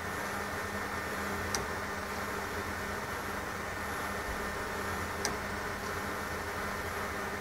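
Small electric motor and belt drive of an exoskeleton joint actuator running, a steady whir with a low hum, and two sharp ticks, about a second and a half in and near five seconds.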